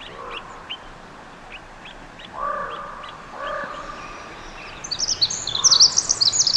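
Birds singing: a run of short high chirps, a lower call heard twice near the middle, then a loud, rapid high song of quick rising and falling notes starting about five seconds in.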